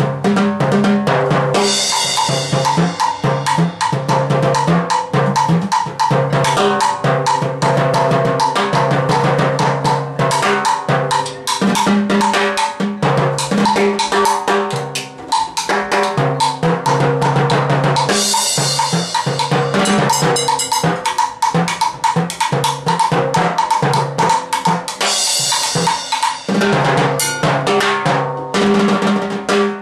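Timbales played fast with sticks in a dense, driving pattern, with a mounted cowbell struck in a repeating beat and a cymbal crashed and left ringing a few times: near the start, about two-thirds of the way in, and again near the end.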